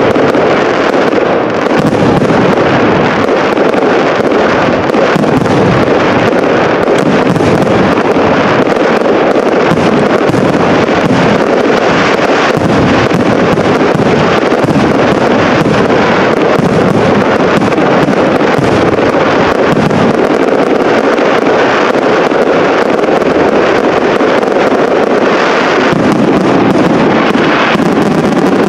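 Fireworks barrage: shell bursts and crackle following so closely that they run together into one loud, continuous din.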